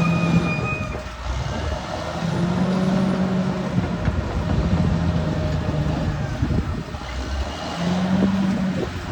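Caterpillar D6R XL bulldozer working, its diesel engine running with the load rising and easing every couple of seconds, over rough clattering noise from the tracks and the pushed earth. A thin high whine sounds at the start, fades about a second in, and comes back near the end.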